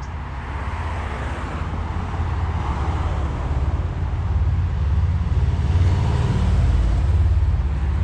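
Road traffic on a city street: cars passing one after another over a deep, continuous low rumble.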